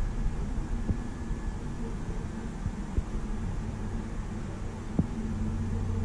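Samsung laptop booting Windows 7 from its ordinary hard disk drive: a steady low hum with a few faint clicks.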